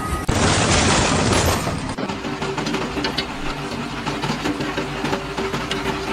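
A loud rushing noise for about a second and a half, then a heavy machine's engine running steadily with light clatter.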